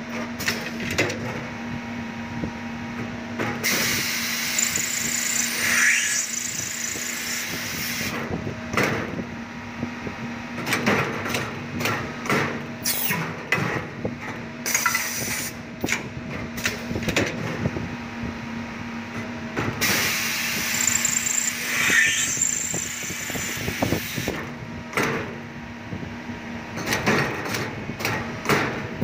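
PLC-controlled automatic lathe machining brass inserts: a steady motor hum runs under two long cutting passes about 4 s each, one around 4 s in and the same again around 20 s in, each with a brief high whine. Between the passes come quick mechanical clicks and knocks of the slides and clamps as the cycle indexes.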